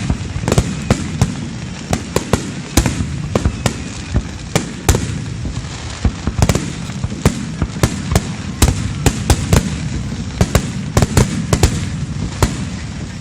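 Aerial fireworks bursting in a dense, continuous volley: several sharp cracks and bangs a second over a steady low rumble of overlapping booms.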